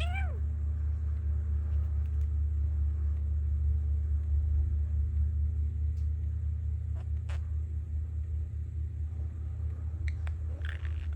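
Steady low rumble of construction machinery outside. A budgie's short chirps come right at the start and again near the end, with a few faint clicks between.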